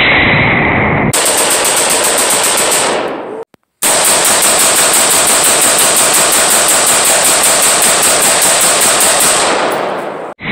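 AR-15 pistol dumping a magazine, evenly spaced shots about six a second as fast as the trigger can be pulled. The string breaks off about three and a half seconds in, then a second long string of rapid shots runs until just before the end.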